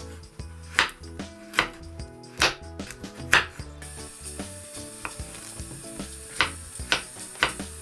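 Chef's knife chopping carrot and then cucumber on a wooden cutting board: sharp knocks of the blade on the board, at first about one a second, then quicker near the end.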